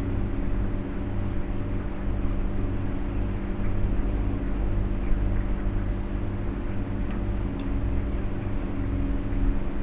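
A steady low mechanical hum with a rumbling undertone, unchanging throughout.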